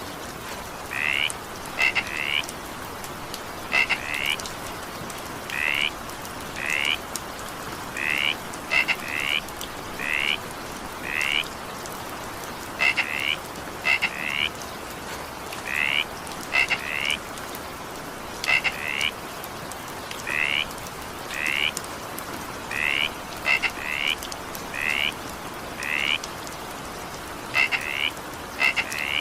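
Frogs calling in rain: short croaks repeated about once a second, often in quick pairs, over a steady hiss of falling rain.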